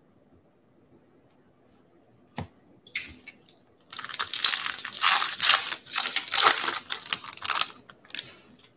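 A 2020 Bowman baseball-card pack's foil wrapper being torn open and crinkled by hand, a dense crackle from about four seconds in that dies away near the end. A single sharp click comes before it.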